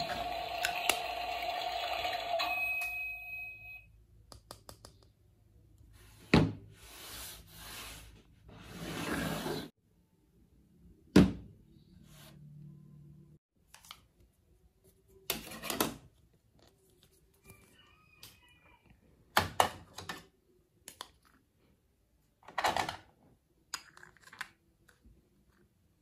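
A toy coffee machine's small pump running with a steady hum and hiss, dying away about three seconds in. Then hard plastic toy pieces, a plate and play doughnuts, clicking and knocking as they are handled and set down, with a few short scrapes and one louder thunk near the middle.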